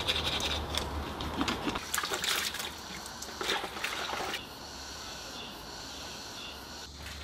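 Teeth being brushed and water dribbling and splashing as a person rinses and washes their face at a tap: irregular scrubbing and splashes. About four and a half seconds in it turns to a quieter, steady rubbing as the face is dried with a towel.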